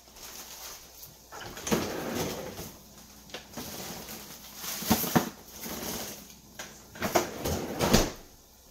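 Rustling and crinkling with a few sharp knocks as a container of freeze-dried kale is opened and handled, loudest about five seconds in and again near the end.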